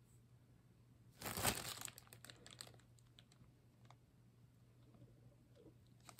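Plastic zip-lock bag crinkling briefly about a second in, followed by a few light clicks of metal clip-on earrings being handled and set down.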